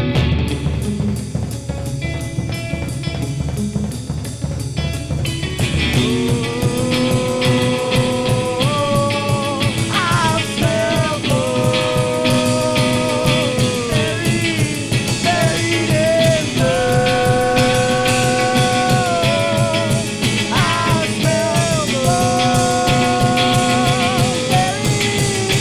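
Rock band playing live: electric guitar and drum kit, with a man's voice coming in about six seconds in and singing long held notes.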